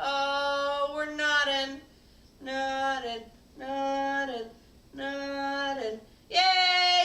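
A woman's voice singing unaccompanied: about five long held notes, each roughly a second long, with short breaks between them.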